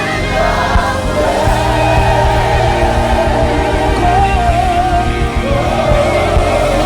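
Live gospel worship song with band accompaniment, a singer holding long wavering notes over the music.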